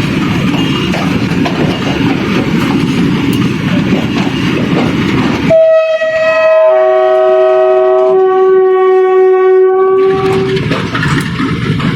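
Passenger train running with a steady rumble and clatter of wheels on rail. About halfway through, a locomotive horn sounds a chord of several steady tones for about five seconds, then the running noise returns.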